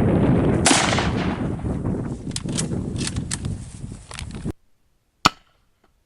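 A large-calibre rifle shot about a second in, heard over wind rumbling on the microphone, with a long fading rumble and a few sharp clicks after it. The sound then cuts off suddenly, and a single sharp crack follows about five seconds in.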